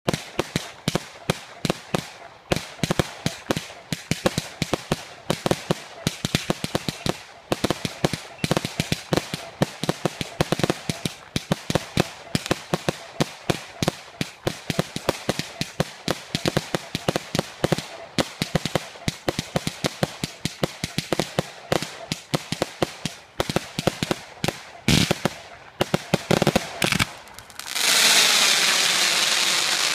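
Fireworks going off in a rapid run of sharp bangs, several a second, without pause. Near the end a loud, steady hiss of burning pyrotechnics takes over.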